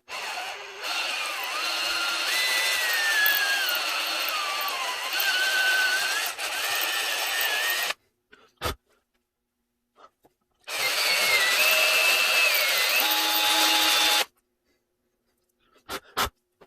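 Power drill boring into a broken-off exhaust stud in a Nissan VG30ET cylinder head, run twice, for about eight seconds and then about three, with a squeal from the bit that wanders in pitch; each run stops abruptly. A few short knocks follow each run.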